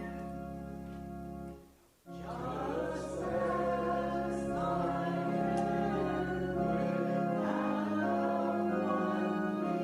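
A church congregation singing a hymn to organ accompaniment. The organ's held chords break off briefly just before two seconds in, then the congregation comes in singing over the organ.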